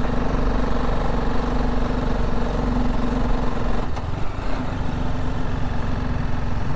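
Motorcycle engine pulling slowly uphill in third gear at low speed, a steady engine note that shifts slightly about four seconds in.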